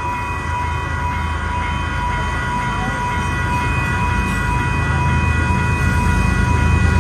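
A train rumbles through a railroad grade crossing, getting steadily louder. Over it the crossing's electronic bell keeps up a steady high ringing.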